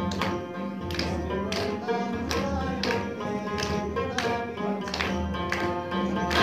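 Live instrumental music with a sustained melody, and a group clapping in time at about two claps a second.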